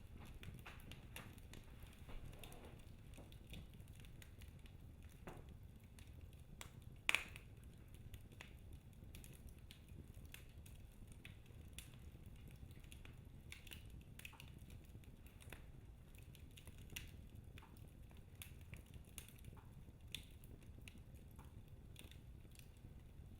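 Wood fire crackling in a fireplace: scattered faint pops and snaps over a low, steady rumble, with one sharp, louder pop about seven seconds in.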